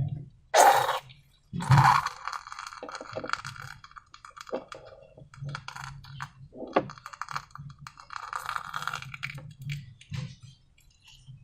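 Slime being handled: irregular sticky crackling and clicking, with two louder crackly bursts in the first two seconds and smaller crackles after.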